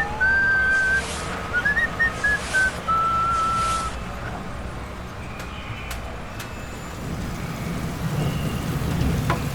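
A short whistled tune with small chirpy pitch steps for the first few seconds, over a steady low vehicle engine rumble that grows a little louder near the end.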